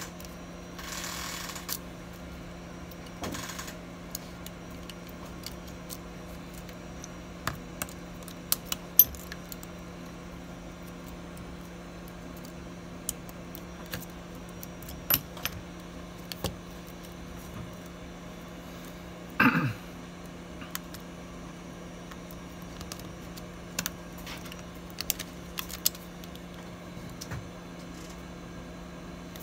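Small clicks and taps of parts and tools handled on an opened iPhone during reassembly, scattered irregularly over a steady low hum. About twenty seconds in comes one louder scraping squeak that falls sharply in pitch.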